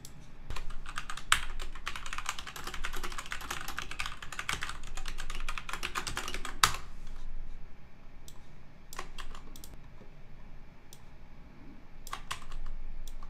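Typing on a computer keyboard: a fast, dense run of keystrokes for about six seconds, ending in one sharper key press, then a few scattered single clicks.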